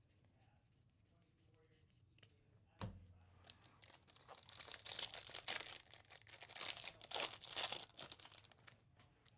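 A single low thump about three seconds in, then the foil wrapper of a 2024 Topps Series 2 baseball card pack being torn open and crinkled for several seconds.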